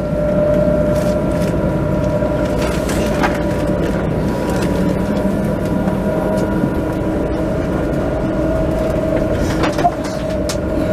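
Alstom Citadis light-rail tram running along its track, heard from inside: a steady rumble with a steady whine over it and a few light clicks.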